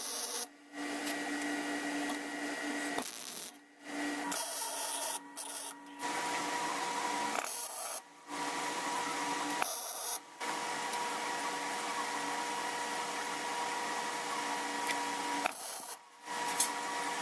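Wire-feed (MIG-type) welder laying welds on steel frame tubing: a steady crackling arc with a faint hum, in several runs of a few seconds each, stopping briefly between welds.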